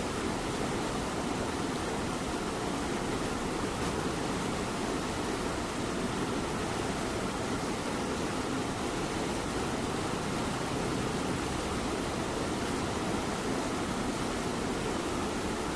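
Light rain falling in a steady hiss, with a cat's purr as a low, rough rumble underneath.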